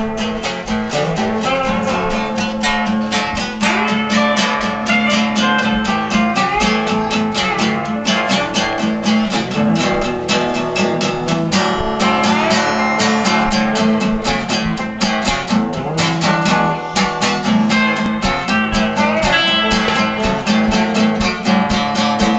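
Acoustic guitar played with a quick, even rhythm of picked and strummed notes.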